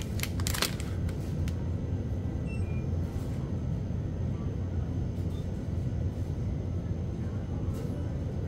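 Plastic ice cream wrapper crinkling in a short crackly burst in the first second as the wafer ice cream sandwich is pulled out, then a few faint rustles, over a steady low background rumble.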